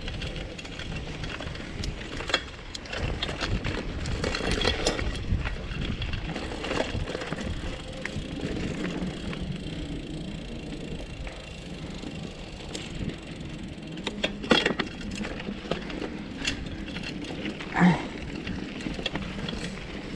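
Vintage bicycle ridden over a rough trail: a continuous rattle and rumble of tyres and frame, with a few sharp knocks, about two seconds in and twice near the end.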